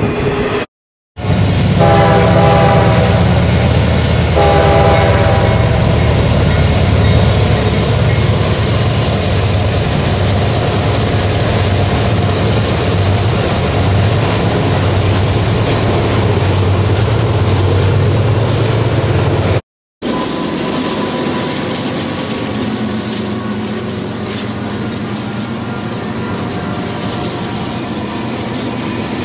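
Diesel locomotive sound: engine running with a deep steady drone and two horn blasts a few seconds in. After a short break, a quieter rolling of train wheels over track.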